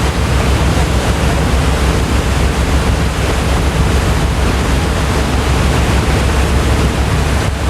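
Ferry's engines droning low under a steady rush of wind and sea water.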